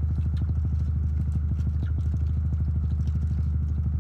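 Car engine idling steadily, heard from inside the cabin as a low, even hum with a fine regular pulse.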